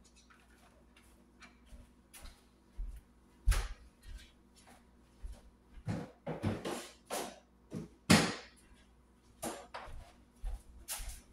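Kitchen handling noise: irregular knocks and clatters as a cutting board and other kitchen things are picked up, moved and set down. There is a sharp knock about three and a half seconds in, and the loudest clatter comes about eight seconds in.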